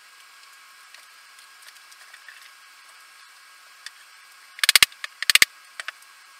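Two quick clusters of sharp clicks and taps about half a second apart, a little past the middle, followed by a couple of fainter ticks, over a faint steady hiss.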